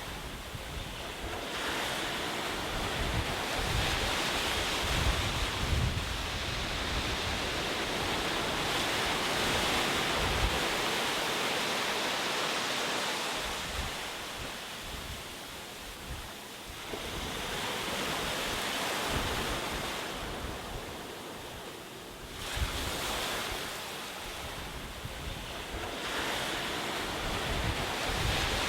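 Ocean waves breaking and washing up the shore: a rushing surf noise that rises and falls in long swells, fading briefly about halfway through and again a few seconds before the end before each new wave comes in.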